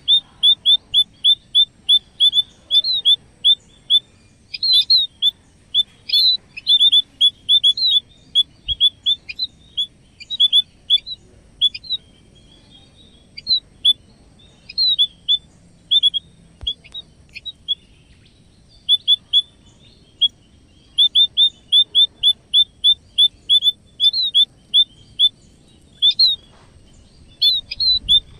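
Munias chirping: short, high chirps repeated several times a second in runs separated by brief pauses.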